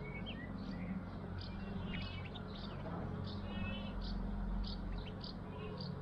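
Budgerigar chirping and warbling in quick, repeated short calls, over a steady low background hum.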